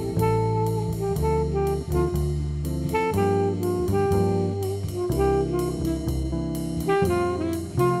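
Background music: an instrumental jazz tune with brass instruments over a steady beat.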